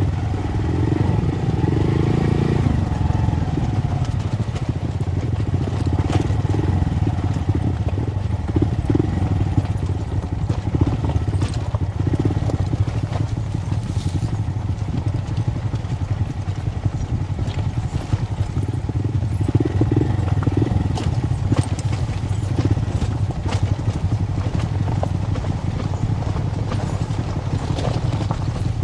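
Motorcycle engine running steadily while riding a rough off-road lane, with scattered knocks and rattles from the bumpy surface.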